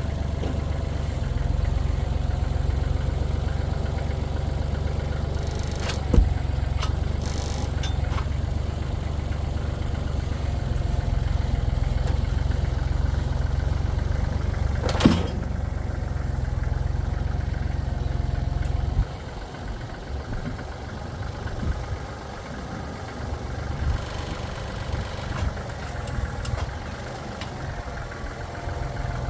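Engine running steadily at idle, its low drone dropping noticeably about two-thirds of the way through, with two sharp metallic knocks along the way.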